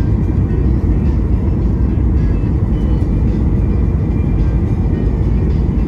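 Steady low rumble of a Boeing 737's engines and airflow heard from inside the passenger cabin in flight.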